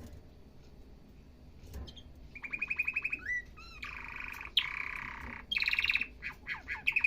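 Domestic canary singing. It starts about two seconds in with a fast trill of repeated notes, then a few sliding whistles, a dense buzzy phrase, and more quick rolls.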